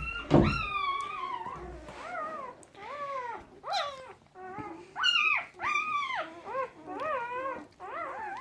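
Newborn puppies, about a day and a half old, crying: a string of short high-pitched squeals that rise and fall in pitch, one or two a second, several voices overlapping. A brief low thump just at the start.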